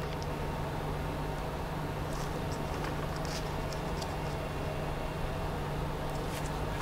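Steady low hum with a few faint light clicks from handling a plastic bucket and its cable.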